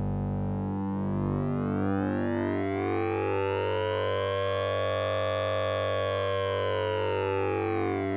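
Synthesized sync-and-ring-modulation tone from the Orange Vocoder plugin: a steady low drone whose upper overtones sweep slowly up and back down, highest about midway, like a slow siren.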